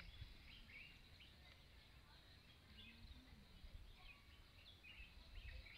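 Near silence: quiet outdoor ambience with scattered faint small-bird chirps and a low rumble.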